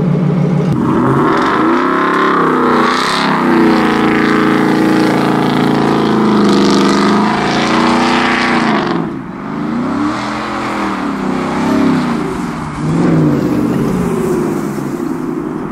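Supercharged V8 of a PaxPower V8 Ford Raptor pickup revving hard as the truck accelerates, its pitch climbing and dropping with each rev, then a run of shorter revs that fade slightly near the end.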